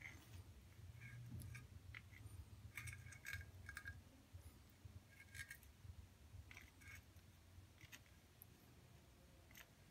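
Thin wire drawn across a glazed ceramic tile, giving faint, scattered small clicks and ticks over a low steady hum; near silence otherwise.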